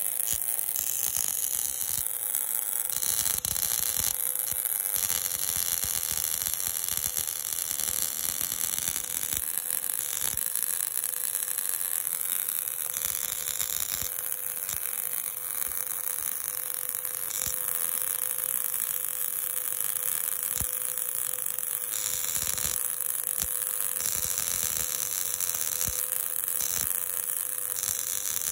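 MIG welding arc running one continuous push-pass bead on steel plate and tube: a steady, unbroken sizzle with a constant hum.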